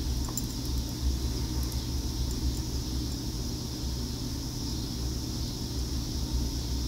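Steady low rumble with a high hiss of background noise, and a few faint light clicks in the first two or three seconds.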